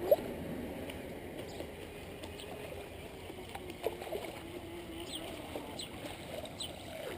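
Small electric RC boat with a brushless motor running on open water, heard faintly as a thin, wavering motor whine. A couple of sharp knocks right at the start.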